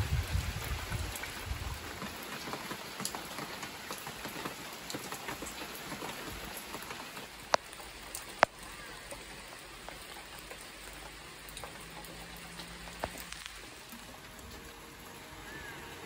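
Rain falling on garden plants and soil, a steady patter of many small drops, a little heavier in the first couple of seconds. Two sharp clicks stand out, about seven and a half and eight and a half seconds in.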